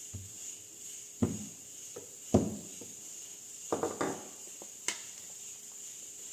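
A few short knocks and thumps from bread dough being handled and set down on a kitchen table, one soft cluster of them about four seconds in. Behind them runs a steady high-pitched chirring of insects.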